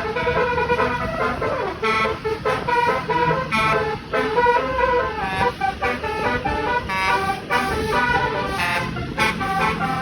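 Basuri, a multi-tone melodic bus horn, playing a pop tune as a quick run of sustained horn notes that change pitch every fraction of a second.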